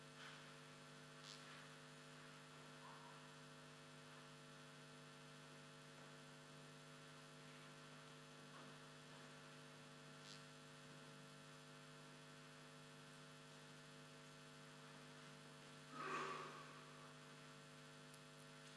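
Near silence over a steady electrical mains hum of several steady tones, broken by a few faint brief noises and one short, somewhat louder sound about sixteen seconds in.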